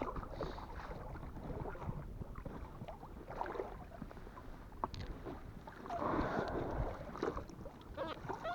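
Wind buffeting the microphone over water sloshing around a small boat, with scattered light knocks from handling. A louder rush of noise comes about six seconds in.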